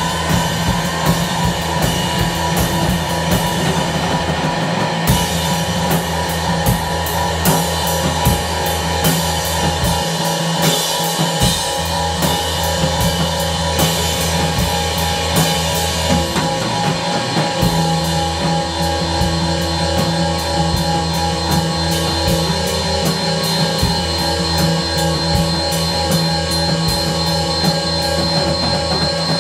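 Live rock band playing loudly: a drum kit with crashing cymbals keeps a steady beat under electric guitar and bass guitar.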